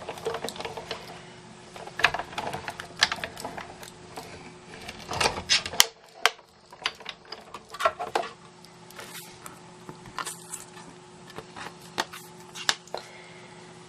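Sizzix Big Shot die-cutting machine being hand-cranked, the plate sandwich going through the rollers with irregular clicks and knocks, louder in roughly the first six seconds. After that come scattered clicks and taps as the plates and metal die are handled.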